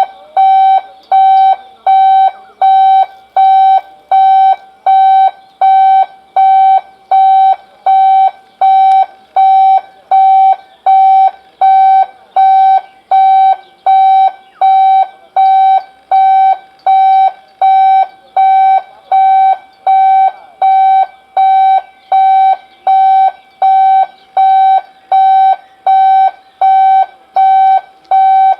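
Electronic warning beeper sounding loud, even, repeated beeps, about one and a half a second, each a single pitched tone that starts sharply and fades quickly.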